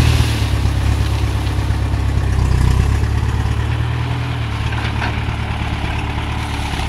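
Engine of an old John Deere tractor with a sugarcane grab loader, running steadily as the grab releases its load of cane and lifts back up.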